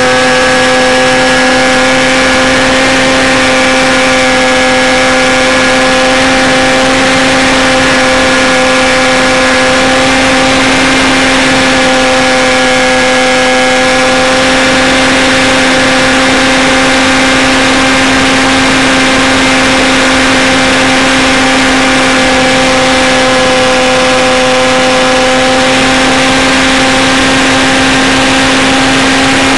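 Motor and propeller of an Arttech Coota RC model plane running at a steady high pitch, held at full power in flight after the take-off run. It is loud and close, heard from a camera on board.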